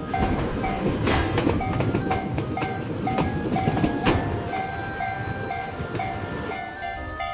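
Japanese railway level-crossing alarm ringing in a steady rhythm of about two strokes a second while a train passes, its wheels clattering over the rail joints with a dense rumble that eases a little over the last couple of seconds.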